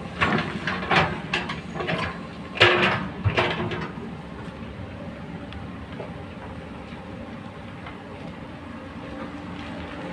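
Komatsu hydraulic excavator at work, its diesel engine running steadily. In the first few seconds the bucket scrapes and clanks through stony soil in about half a dozen loud clattering bursts, then only the steady engine drone remains.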